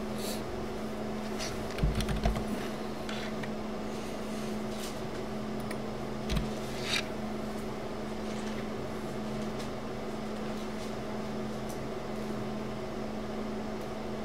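Steady low room hum with scattered computer keyboard and mouse clicks, and a couple of dull bumps about two and six seconds in.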